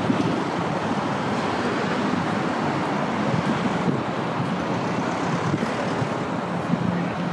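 Busy city street ambience: a steady wash of road traffic noise.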